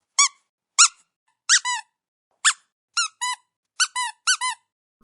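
Rubber squeaky toy being squeezed in a comic sound effect: about eleven short, high squeaks, each rising and falling in pitch, several in quick pairs, at an uneven pace.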